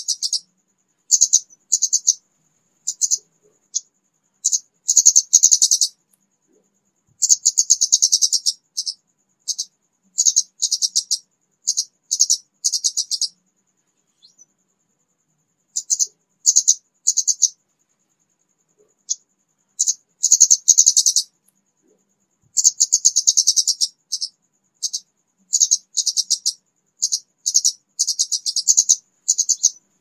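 High, rapid chirping calls of a kemade (a flowerpecker), in repeated bursts of half a second to a second and a half with short pauses between. This is a lure call of the kind played to draw the bird in.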